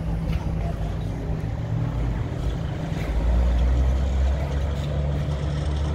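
World War II White half-track's engine running with a steady low rumble that grows louder and deeper about three seconds in.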